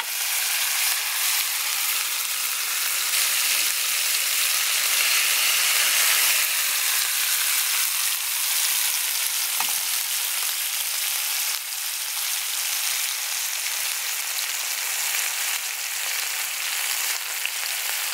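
Fish steaks coated in red masala sizzling steadily as they shallow-fry in oil on a large flat pan.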